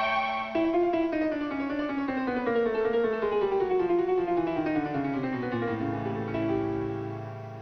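Piano music: a long run of notes stepping steadily down the keyboard, settling into held low notes near the end.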